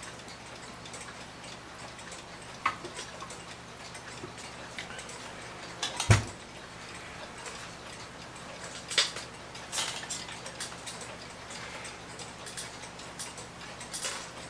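1900s New Haven Clock Co. mantel clock ticking softly. A few sharper clicks and a loud thump about six seconds in sound over the ticking.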